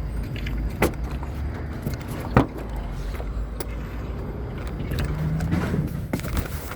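Car running with a steady low rumble, with a sharp knock a little under a second in and a louder one about two and a half seconds in, plus small rattles.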